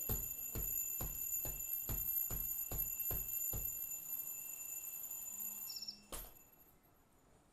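Vintage alarm clock ringing, a steady high bell tone with a regular strike about two and a half times a second for the first three and a half seconds. The ringing stops with a click about six seconds in.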